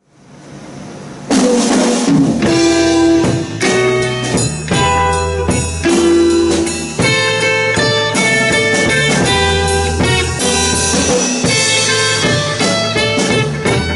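A rock band playing live: drum kit, electric bass and electric guitar. The sound fades in, then the full band comes in loudly about a second in and keeps playing a steady beat.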